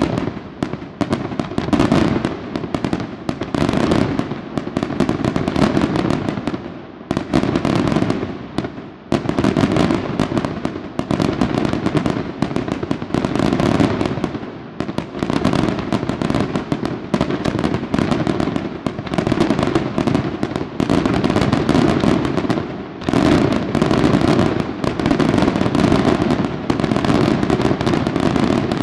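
Dense fireworks barrage: aerial shells and crackling effects going off in rapid, overlapping bangs with no pause, starting suddenly.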